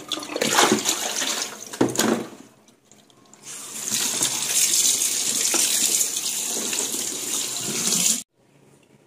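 Kitchen tap water running and splashing onto a whole raw chicken in a plastic basin in a stainless steel sink as it is rinsed by hand. The water breaks off for about a second some two and a half seconds in, then runs steadily and cuts off suddenly near the end.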